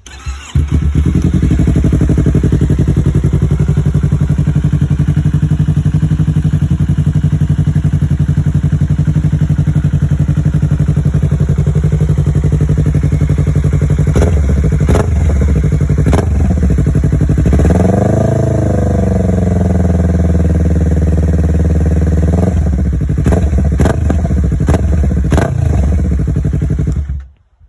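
2017 Yamaha R3's 321 cc parallel-twin engine running through an aftermarket anodized full exhaust system: it starts, idles steadily, and is revved once, rising and falling, about 18 seconds in. There are a few sharp pops along the way, and the engine cuts off just before the end.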